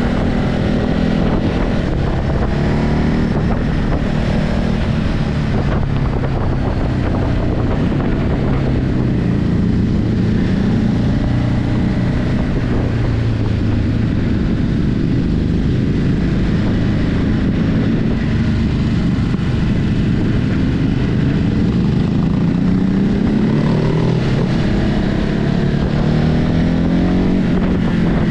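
Ducati Hypermotard 950's 937 cc Testastretta L-twin on its stock exhaust, running under way. Its pitch rises and falls several times with throttle and gear changes, with wind noise over it.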